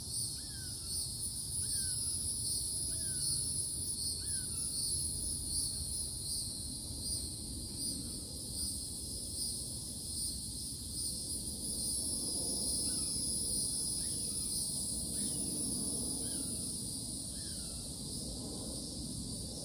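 A chorus of insects droning steadily at a high pitch with a fast pulse. Over it a bird repeats a short down-slurred call about once a second, through the first few seconds and again in the second half.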